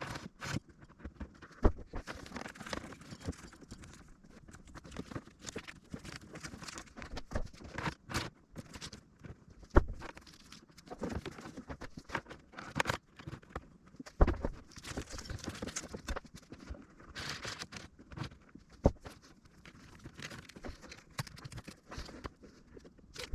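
Irregular clicks, knocks and rustling from hands-on work on car wiring and interior trim, with a few sharper knocks scattered through.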